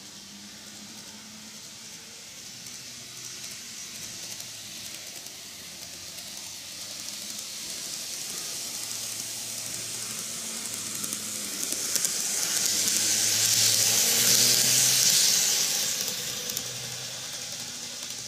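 An N-gauge model of the JR East E653 series 1100 train by Greenmax running on TOMIX plastic track. Its motor and wheels make a high rushing noise over a faint low hum. The noise grows as the train approaches, is loudest from about 13 to 16 seconds in as it passes closest, then fades away.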